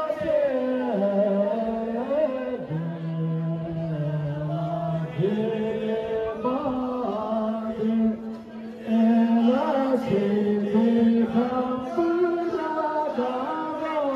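Voices singing a slow chant-like song, with long held notes that step from one pitch to the next, including a low note held for a couple of seconds about three seconds in and a brief drop in level about eight seconds in.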